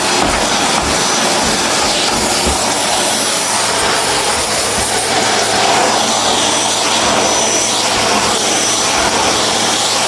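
Vacuum cleaner running steadily: an even, loud rushing whine over a low motor hum, with a thin high whistle that fades out near the end.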